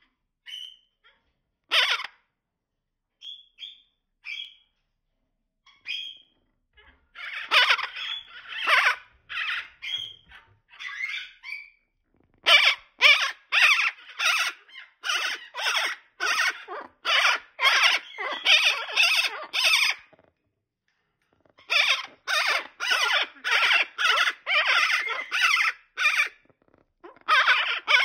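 Monk parakeets calling in a nest box: a few short calls at first, then long runs of rapid, repeated calls about two to three a second, broken by a short pause about twenty seconds in.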